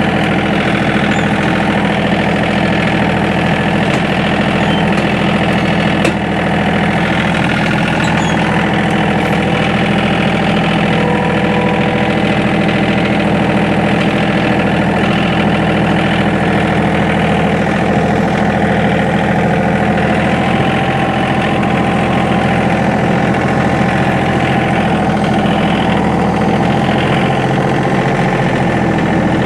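John Deere 2032R compact tractor's three-cylinder diesel engine running at a steady speed.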